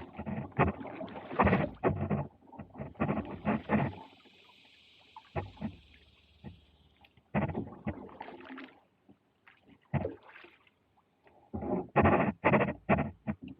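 Kayak paddling on a creek: water splashing and sloshing in quick bursts of short strokes, pausing briefly twice.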